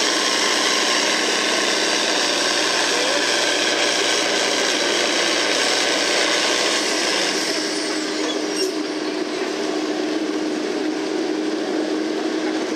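A John Deere farm stock tractor's engine running loud and steady at high power under heavy load, black smoke pouring from its stack. The sound shifts slightly about seven seconds in.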